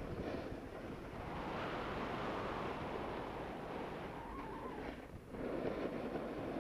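Snowboard sliding and scraping over packed, tracked piste snow, with wind rushing over the microphone. The scraping eases briefly about five seconds in, then picks up again.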